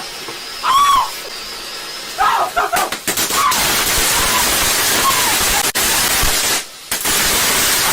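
A firework going off indoors: a loud, steady hiss of burning and spraying from about three seconds in, with a couple of sharp cracks.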